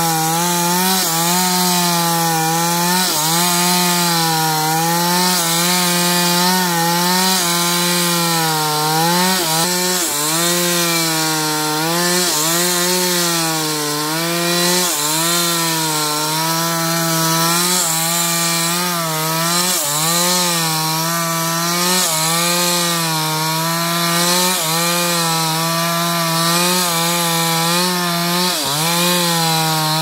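Chainsaw running at full throttle while cutting through wood. Its engine pitch sags briefly under the load of the cut and recovers every second or few.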